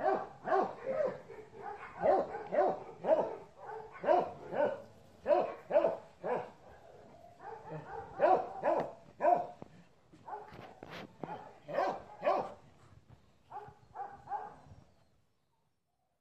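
Dog barking repeatedly, about two barks a second with a few short pauses, then stopping near the end.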